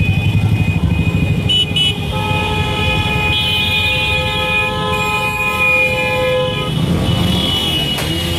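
A mass of motorcycles riding together, engines running, with horns honking: two short beeps, then one long horn blast held for about five seconds.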